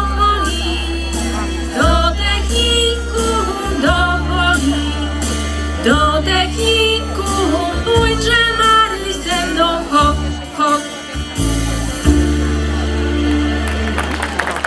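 Pop-folk song: a female voice sings into a microphone over a backing track with a steady bass line. The music stops shortly before the end and clapping begins.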